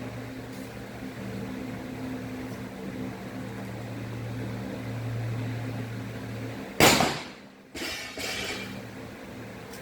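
A single air rifle shot about seven seconds in: a sudden sharp crack that dies away within about half a second, with a shorter, quieter noise about a second later. A steady low hum runs under the rest.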